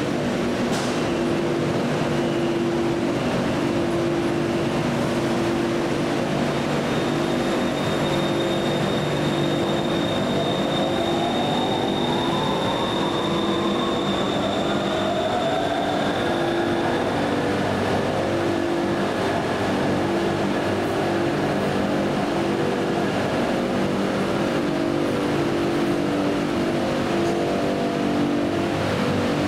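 BTS Skytrain electric train standing at an elevated platform, its onboard equipment humming steadily. About ten seconds in, a whine rises in pitch, levels off, and fades out later.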